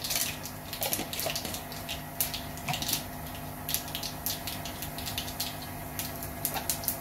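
Tempering of mustard seeds, urad dal and chana dal frying in hot coconut oil in a stainless steel kadai: a steady sizzle with frequent sharp, irregular crackles.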